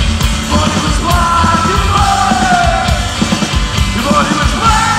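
Live rock band playing loud: electric guitars, bass guitar and drums, with a man's shouted singing coming in about a second in.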